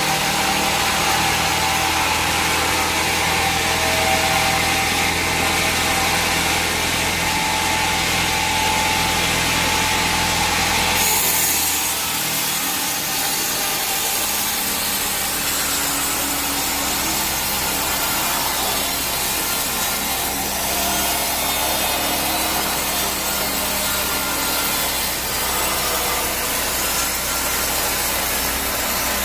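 A powered saw running steadily while cutting through timber. About eleven seconds in the sound changes abruptly, with a brighter hiss on top.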